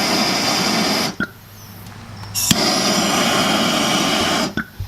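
An aerosol spray can hissing in two sprays, a short one of about a second and then a longer one of about two seconds, with a sharp click just before the second.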